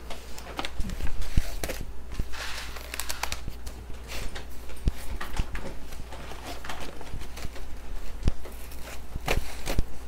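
Large fresh banana leaves rustling and crinkling as they are handled, unfolded and laid flat by hand on a wooden cutting board, with scattered soft taps and knocks.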